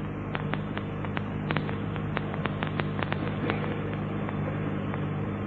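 Steady hum and hiss of a lecture recording's background, with scattered clicks several times a second.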